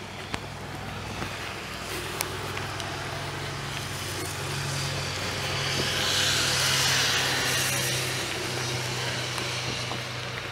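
A motor engine runs steadily with a low hum. A rushing noise swells to its loudest about two-thirds of the way through and then fades, with faint footsteps underneath.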